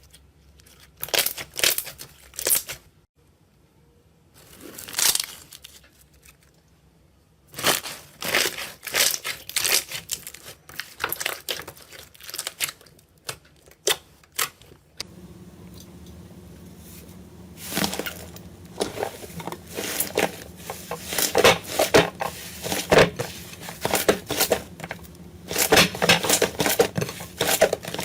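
Slime being squeezed and poked by hand, giving clusters of sticky crackling and popping separated by short pauses. About halfway in the crackling becomes denser and more continuous, over a faint low hum.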